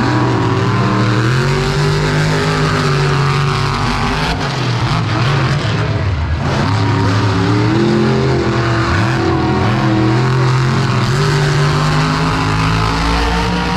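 Monster truck engine running loud, its pitch rising and falling several times as it is revved up and backed off.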